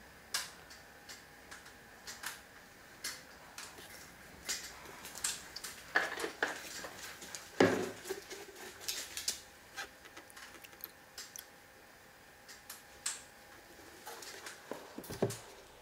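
Irregular light clicks and taps of small hard objects being handled and set down, with two louder knocks about six and eight seconds in.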